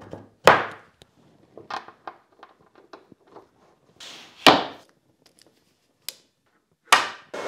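A series of sharp knocks and clicks of hardware being handled on a workbench: a stainless steel bench dog knocking into a hole in an MFT worktop, and hose fittings clicking together. The loudest knocks come about half a second in and about four and a half seconds in. A rushing noise starts right at the end.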